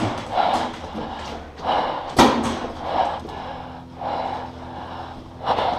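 Hard, noisy breaths close to the microphone, coming in short bursts, with one sharp loud crack a little over two seconds in.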